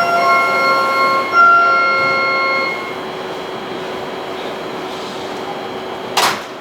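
Platform screen door chime: a bright electronic chime of several notes repeating in short phrases, which stops about three seconds in. Steady station noise follows, with a brief sharp hiss near the end.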